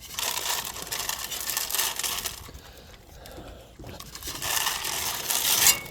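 Rustling, crunching noise in two stretches, the second louder and cutting off sharply near the end.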